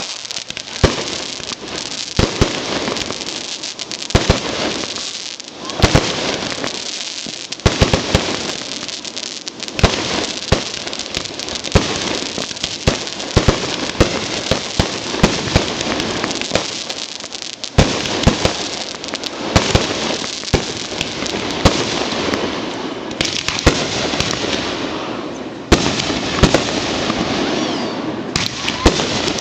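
Aerial fireworks bursting in quick succession: many sharp bangs over a continuous dense crackle.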